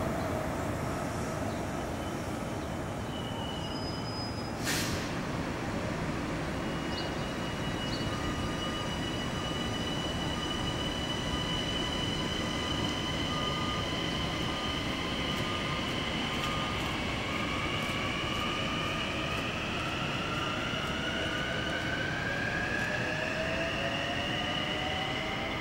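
Two-car Kawasaki M9 electric multiple-unit train running on the track, with steady rail noise, a sharp click about five seconds in, and thin whining tones that climb in pitch over the last several seconds.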